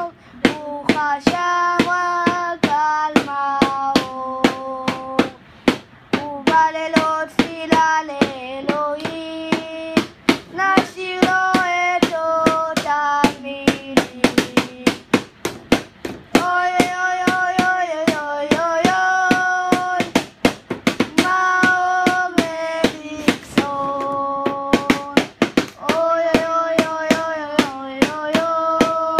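Voices singing a Hebrew song over a steady beat of hand hits, about three a second.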